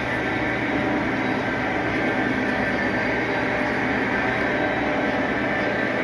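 Model trains running on a large layout: a steady rumble of wheels on track with electric motor hum.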